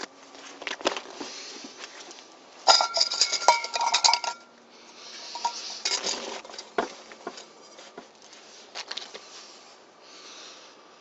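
Metal camping cookware, a stainless steel mug and pot, clinking and clattering as it is packed into a backpack pocket, with a burst of ringing clanks about three seconds in, then scattered knocks and the rustle of fabric and nylon.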